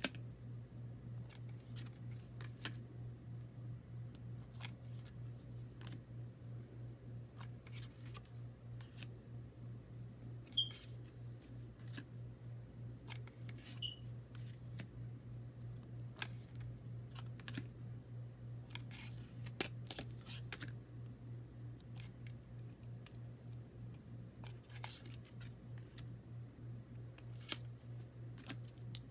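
Scattered light clicks and taps from handling a tarot deck and its packaging, over a steady low hum. The sharpest click comes about ten seconds in.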